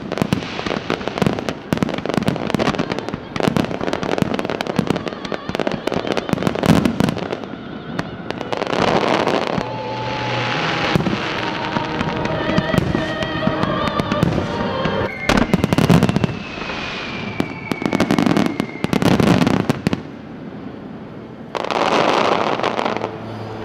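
Aerial fireworks shells bursting. A rapid volley of bangs and crackle runs for the first several seconds, then comes a slower run of separate heavy bursts, with a long falling whistle partway through.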